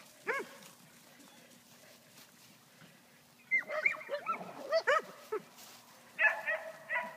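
Dogs barking and yipping: one bark, then a quick string of barks and yips a few seconds in, and another short flurry near the end.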